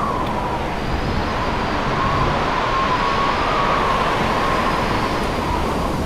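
Storm wind of about 40 to 55 knots blowing over a sailboat: a loud, steady rush with a high, wavering whistle riding on top of it.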